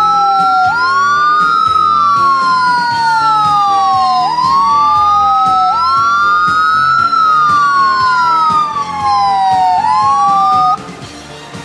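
Two emergency-vehicle sirens wailing together, out of step, each rising quickly and falling slowly over about three seconds; both cut off together near the end.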